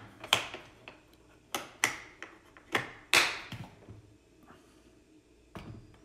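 Hard plastic knocks and clunks of a Milwaukee M18 wet/dry vacuum's case being handled and set down on a glass kitchen scale: a quick series of sharp knocks over the first four seconds, then one more near the end.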